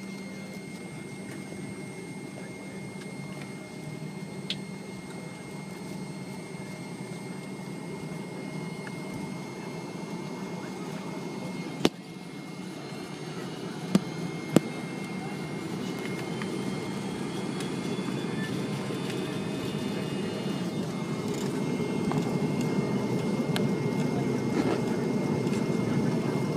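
Cabin noise inside a McDonnell Douglas MD-88 airliner, its rear-mounted Pratt & Whitney JT8D jet engines growing steadily louder with a rising whine as they spool up for takeoff. A few sharp clicks sound about halfway through.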